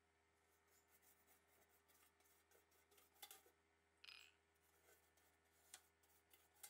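Near silence: faint room tone with a low steady hum and a few faint clicks, the clearest about three seconds in, four seconds in and near the end.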